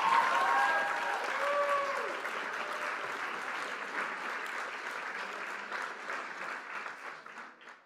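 A crowd applauding, with a few cheering voices rising and falling in the first two seconds, the clapping slowly dying away near the end.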